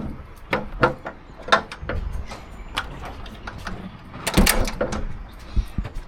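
A run of irregular knocks and clunks of work gear being handled, the loudest a clatter about four and a half seconds in.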